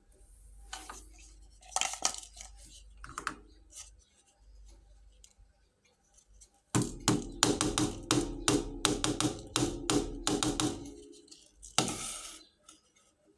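Miniature toy kitchen pieces being handled: a few scattered clicks and taps, then about four seconds of rapid clinking with a ringing tone, and a short scrape near the end.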